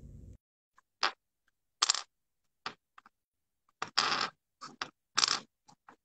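A series of short scraping noises, about eight of them, each cutting in and out abruptly with dead silence between, as if the audio is gated or dropping out.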